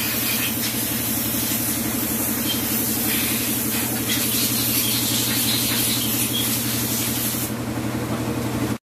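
Compressed air hissing steadily over a low machine hum, cutting off abruptly near the end.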